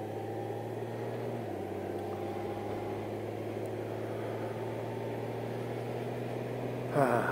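Honda Gold Wing Tour DCT's flat-six engine running steadily at cruising speed under a rush of riding wind. The engine note rises briefly in pitch near the end.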